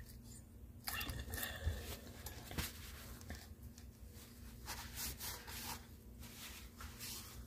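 Faint rubbing and a few light clicks as hands handle a small single-cylinder lawnmower engine with its head off, over a steady low hum.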